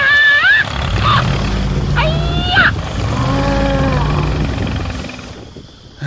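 A low, steady engine rumble from a toy tractor's dubbed sound track, fading out near the end, with four short cartoonish vocal noises over it, pitched sounds that slide up and down like grunts.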